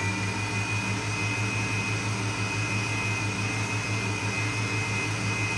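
Kenwood stand mixer running at a steady speed, giving sponge batter a last quick mix. It has a steady high motor whine and an even low pulsing from the beater going round.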